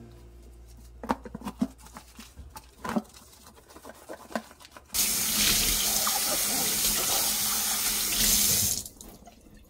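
A fibrous dishcloth scrubbing a wet plastic container, giving short squeaks of squeaky-clean plastic. About five seconds in, the kitchen tap runs steadily into the stainless-steel sink for about four seconds, then stops.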